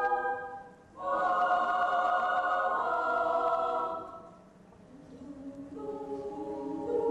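Children's choir singing held chords. A phrase dies away, then a loud chord enters sharply about a second in and holds for about three seconds before fading; the voices come back in softly and swell near the end.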